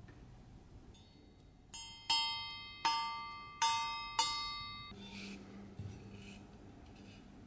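Rusty steel bardiche blade flicked with a fingertip five times in quick succession, the first lightly, each flick giving a clear metallic ring that fades away.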